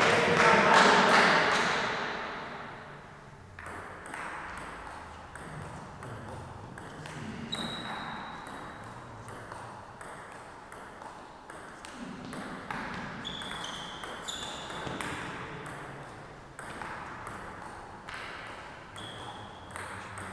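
Table tennis ball being hit back and forth in a rally, a running series of sharp clicks of ball on bat and table, with a few short high squeaks. A loud burst of noise near the start fades away over about two seconds.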